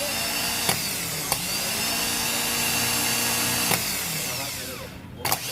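Rebuilt Bosch starter motor from a Tata Sumo, fitted with a new solenoid switch, spinning on a bench test with a steady whine and several sharp clicks. It winds down with a falling whine just under five seconds in, then clicks and spins up again near the end. It runs freely, showing the repair has worked.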